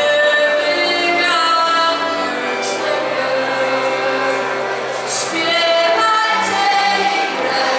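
Choir of mixed voices singing a Polish Christmas carol (kolęda) in long, held notes.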